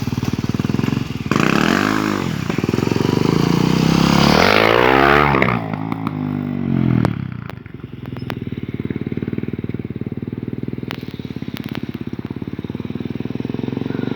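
Honda XR 250 Tornado single-cylinder motorcycle engine revving up and dropping back twice in the first half. From about halfway it runs at a steady low idle, with a few sharp clicks.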